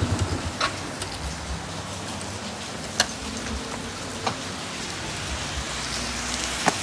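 Steady rain falling, with a few single sharp clicks scattered through it.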